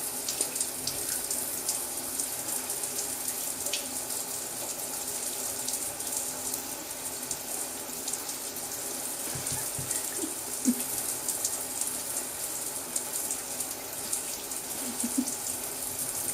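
Steady rushing background noise with a faint low hum and occasional light ticks.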